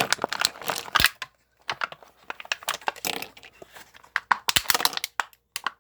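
Toy minifigure packaging being torn open and crinkled by hand: a run of irregular crackles and sharp rips.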